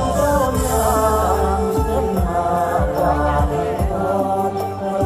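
Music: a voice sings a long, wavering melody without clear words over a low, regular drum beat.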